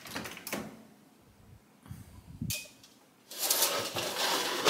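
Kitchen oven door being pulled open, then a foil-lined metal sheet pan being lifted and handled, the aluminium foil crinkling and the pan scraping, louder from about three seconds in.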